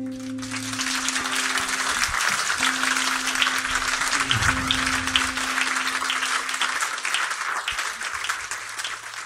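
Audience applause and clapping sets in about a second in over the song's last acoustic guitar chord ringing out, then thins near the end.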